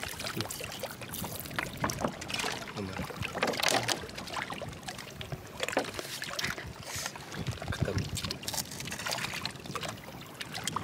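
Water trickling and sloshing with irregular wet clicks and knocks of oyster shells being handled.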